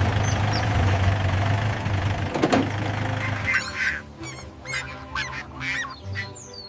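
Background music under a series of short duck quacks in the second half, with a sharp click about two and a half seconds in.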